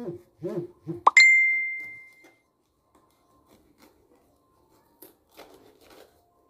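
Added sound effects: three short blips that rise and fall in pitch, then a swoop up into a bell-like ding about a second in that rings out and fades over about a second. Later, faint knife taps and scrapes on a cutting board as a bell pepper is cut.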